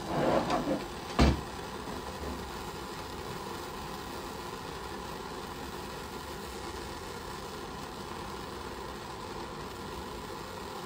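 Steady hiss of a butane torch flame heating a utility-knife blade. A brief handling rattle comes at the start, then one sharp knock about a second in.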